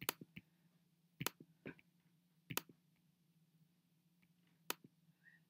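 Four sharp computer mouse clicks, spaced a second or more apart, with a few fainter ticks between, over a faint steady low hum.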